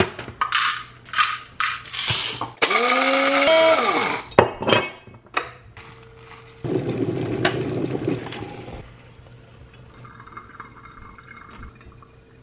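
Coffee-making sounds. First a quick series of taps and clinks as a coffee bag and utensils are handled. An electric blade coffee grinder then runs for about a second, its whir rising in pitch and falling away as it stops. A couple of seconds of steady pouring follow.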